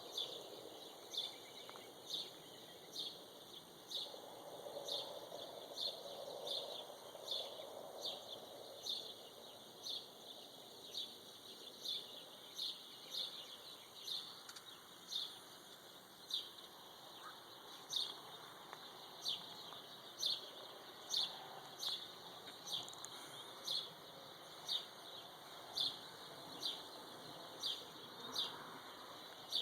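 Morning birdsong: one bird repeating a short, high, sharp call at a very even pace, a little more than once a second, over fainter background bird calls.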